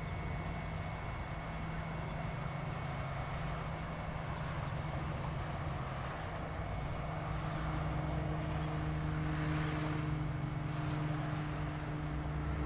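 A motor engine running steadily with a low hum; a second, higher engine tone joins about halfway through, and a short swell of hiss passes near the end.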